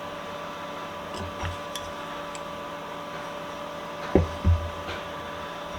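Steady hum with a few faint clicks of tools working on a small metal vise. About four seconds in come two short, louder low sounds.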